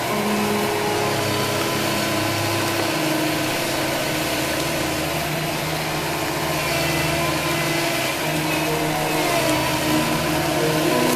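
Komatsu PC160LC excavator's diesel engine running under hydraulic load as the boom pushes against a cedar snag. The engine note shifts a few times.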